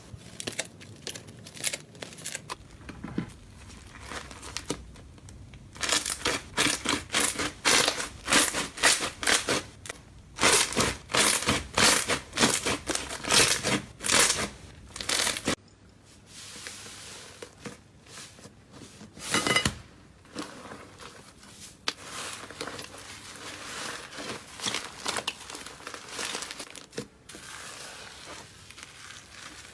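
Slime being squeezed, poked and stretched by hand, giving crackling, popping sounds. The crackles come sparsely at first, then in a fast, loud run of several a second through the middle, with one sharp crack later and softer crackling toward the end.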